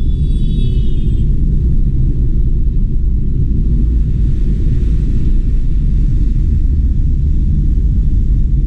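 Steady low rumble inside a Fiat's cabin while driving on a wet road: engine and tyre noise. A brief high-pitched whine sounds in the first second.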